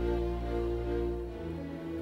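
Orchestral music with bowed strings playing slow, held notes over a low sustained bass; the bass note changes about one and a half seconds in.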